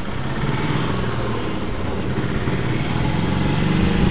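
A small engine running steadily, its hum growing a little louder and higher near the end.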